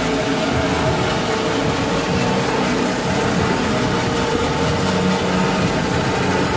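Automatic band saw roll-cutting machine running, a loud, steady mechanical hum and hiss with a few held tones and no breaks.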